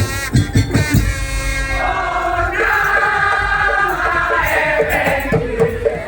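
Live ensemble music: the percussion stops about a second in, and a held melody with several sustained, wavering pitches carries on alone until the beat comes back right at the end.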